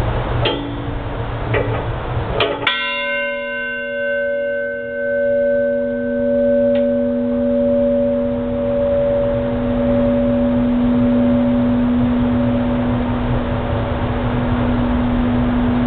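USS Little Rock's 1945 ship's bell struck: three light taps, then one strong strike just under three seconds in. The strong strike leaves a long ring of a low tone with several higher overtones that fades slowly.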